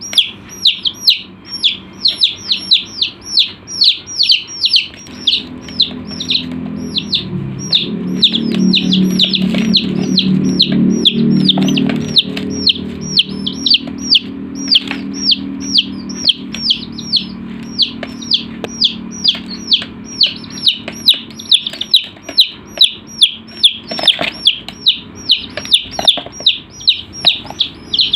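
Chicks peeping: a steady run of short, high, falling peeps, about two or three a second. A low hum swells underneath about a third of the way in and fades away before the end.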